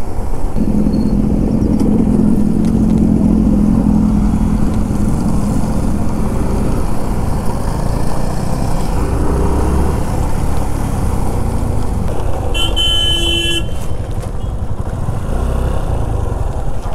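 Yamaha FZS25's single-cylinder engine running under way, with steady road and wind noise. About twelve and a half seconds in, a vehicle horn sounds once for about a second.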